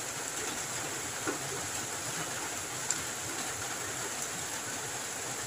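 Heavy rain falling steadily on a corrugated metal roof, an even, unbroken hiss.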